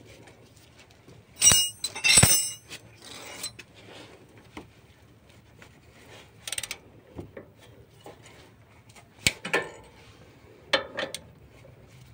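A steel socket ratchet and extension working a brake caliper's mounting bolts: scattered sharp metal clinks and clanks with a brief ring. The two loudest come about one and a half and two seconds in, and a few lighter ones follow through the rest.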